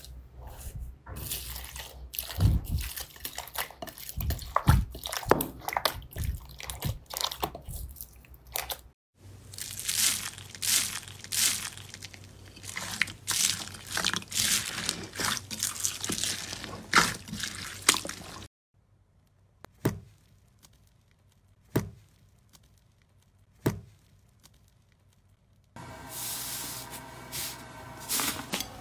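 Hands squishing and pressing slime packed with small foam beads: a dense crunchy crackle of many tiny pops. For several seconds it falls almost silent apart from three sharp single pops about two seconds apart, then softer squishing resumes near the end.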